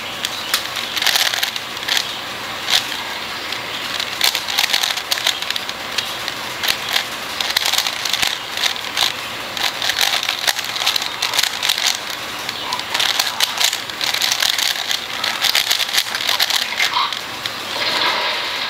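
A DaYan + MF8 4x4 speedcube being turned by hand: fast runs of plastic clicking and clacking as the layers turn, in bursts with short pauses, over a steady hiss.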